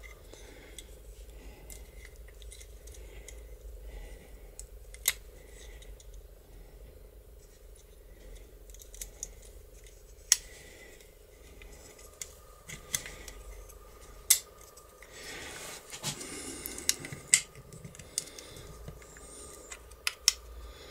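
Small metal parts of a garage lock clicking and tapping against the steel lock case as a part is worked back into place by hand. The clicks come singly and at uneven intervals, more often in the second half.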